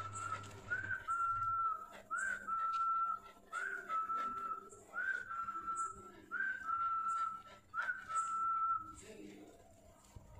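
A person whistling to call street dogs to food: about seven whistled notes, roughly one every second and a half, each a quick upward slide into a steady held tone, stopping near the end.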